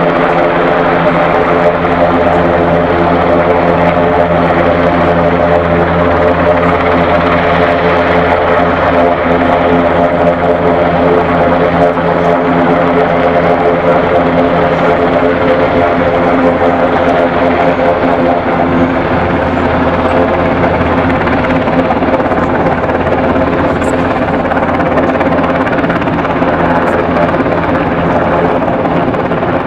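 Loud, steady drone of a helicopter's engine and rotor, unbroken throughout.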